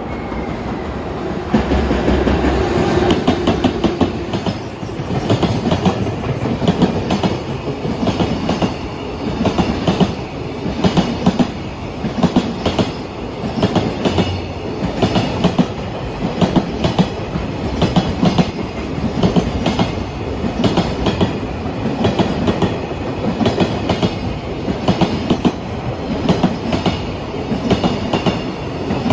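JR Freight EF210-300 electric locomotive and its train of Koki container flatcars, many of them empty, passing at speed. The wheels clatter over rail joints in a steady repeating beat, about one cluster of clicks a second.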